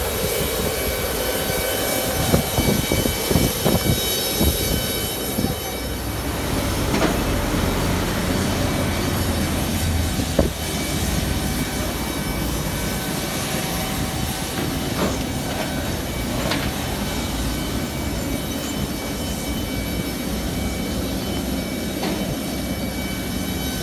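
Steady high-pitched whine and rumble of jet aircraft turbines on an airport apron, with irregular low thumps in the first few seconds.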